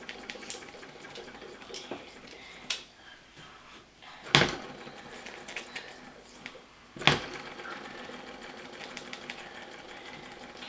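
Mamod model steam engine running under steam with a rapid mechanical ticking, cut twice by a short loud burst, about four and seven seconds in.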